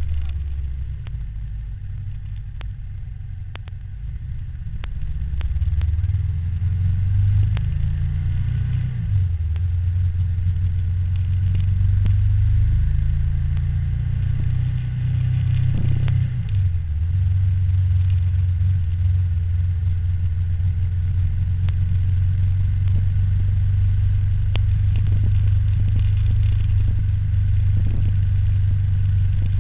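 Low, steady rumble of a ride along a road, with vehicle noise. It is quieter for a few seconds near the start, then swells and holds, and its pitch shifts a couple of times.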